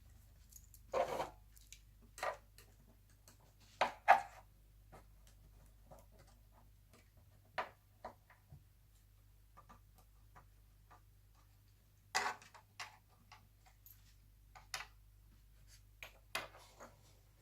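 Scattered clicks, taps and knocks of laptop parts and small hardware being handled during reassembly, with louder knocks about a second in, twice near four seconds, and around twelve seconds.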